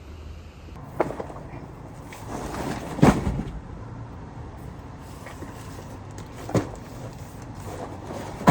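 A few sharp knocks and thumps, the loudest about three seconds in, over a low steady rumble.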